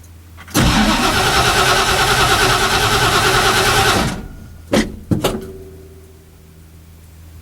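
Starter motor cranking a cold Ford Cleveland V8 for about three and a half seconds with an even, rhythmic pulse, without the engine firing; the throttle linkage is out of adjustment. Cranking stops abruptly, followed by two sharp knocks.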